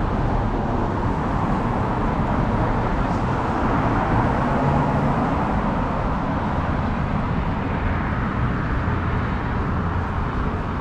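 City street traffic: a steady wash of passing cars, swelling a little about four seconds in.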